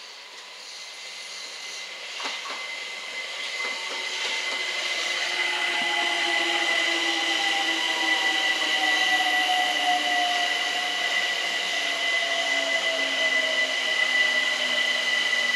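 London Overground Class 378 electric multiple unit arriving and running past, getting louder over the first six seconds. Its electric motor whine falls slowly in pitch as it slows, over a steady high-pitched whine.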